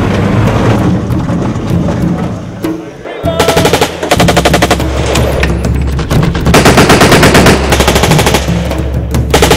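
M240 belt-fed machine gun firing several bursts of rapid automatic fire, each a second or two long, starting about three seconds in, over a low steady rumble.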